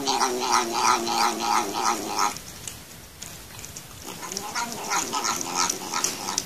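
Domestic cat making long, pulsing murmuring calls while licking food off fingertips. It gives two calls, about four or five pulses a second each: the first ends about two seconds in, and the second runs from about four seconds in to near the end.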